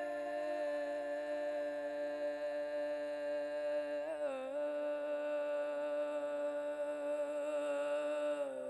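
Ambient background music of long held notes, shifting in pitch about halfway through and again near the end.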